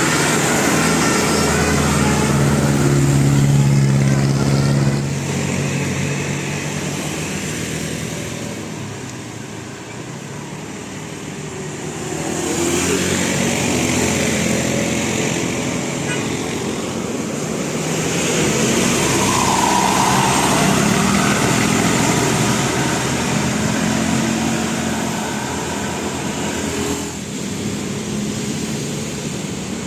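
Road vehicles running and passing by. Their engine sound swells and fades twice over the half-minute.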